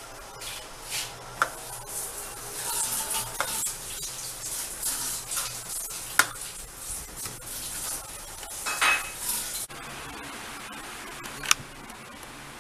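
Metal spoon stirring and scraping through a ceramic bowl of soup, a wet rustling with a few sharp clinks of spoon on bowl. It cuts off abruptly near the end, leaving a faint steady background with one more click.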